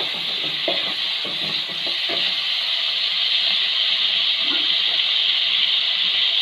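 Chopped tomatoes, onion and green chillies sizzling in hot oil in a metal pan, a steady frying hiss. Wooden spatula stirring strokes scrape through the first two seconds or so.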